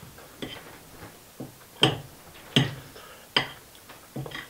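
Fork clinking against a plate during a meal: a couple of soft ticks, then three sharp clinks about three-quarters of a second apart, then two softer ones near the end.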